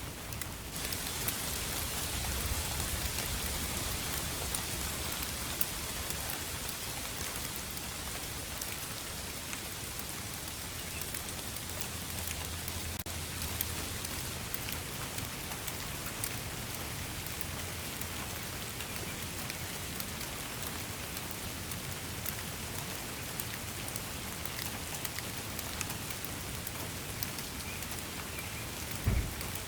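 Steady rain falling, a dense, even patter of individual drops. A single thump sounds just before the end.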